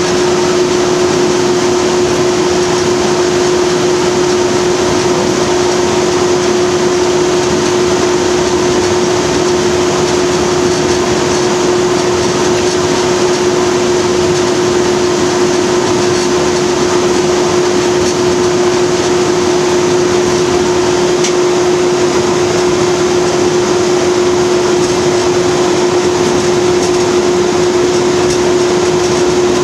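Class 37 diesel locomotive running along the line, heard from inside its cab: a steady engine drone with one strong constant hum over even running noise. It does not rise or fall at all.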